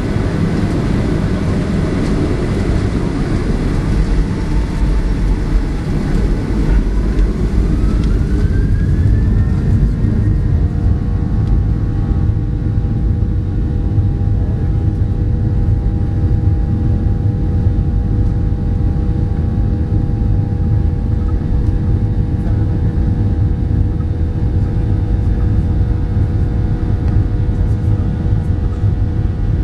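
Cabin sound of a Boeing 737-700's CFM56-7B turbofan engines spooling up for takeoff: several seconds in, the engine whine rises in pitch and then holds steady at takeoff thrust over a heavy low rumble as the airliner accelerates down the runway.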